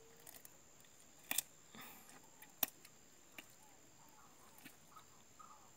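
A few sharp, isolated clicks and snips, the loudest about a second and a half in and another near the middle, as a hooked fish is worked free of a fishing line by hand. Faint short chirps sound in the background.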